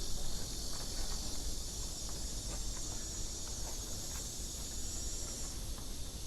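Steady high-pitched insect buzzing, stopping about five and a half seconds in, over a low rumble.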